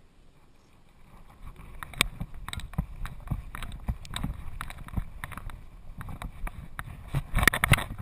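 Knocking and rattling of a GoPro strapped to a Doberman's back as the dog walks over bare rock, with its footfalls and harness jostling; irregular knocks start after a quiet first second or so, with a louder burst of rattling near the end.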